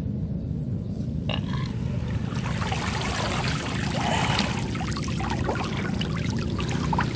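Water splashing and trickling as a gill net is lifted out of flooded rice-field water, getting louder about two and a half seconds in, over a steady low rumble.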